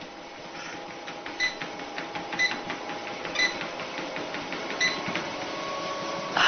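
Motorized treadmill running with a steady hum, and a short, high chirp about once a second.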